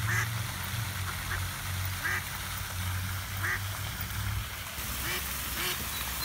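Mallard duck quacking: about six short quacks, roughly one a second, over a low steady hum that drops away near the end.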